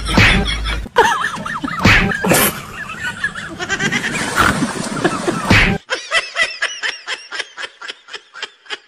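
Laughter for about the first six seconds, then a quieter run of short, rapid pulses, about four a second.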